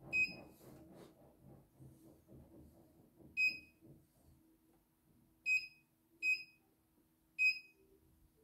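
Five short, high beeps from the button panel of a CNY E900 embroidery machine as keys are pressed to select a design file, unevenly spaced, with a faint steady hum underneath.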